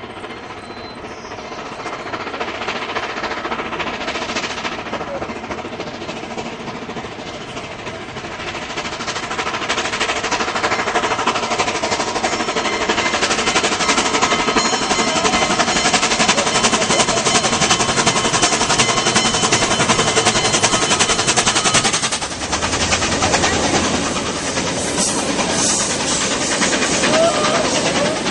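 Southern Pacific 4449, a 4-8-4 steam locomotive, approaching with a rapid run of exhaust chuffs that grows steadily louder. About three-quarters of the way through, the sound dips briefly as the engine passes below, and the passenger cars roll by with a lower rumble.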